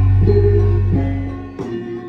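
Gamelan music: metal-keyed instruments play a melody in short stepping notes over the low ringing of a large gong, which fades away about one and a half seconds in.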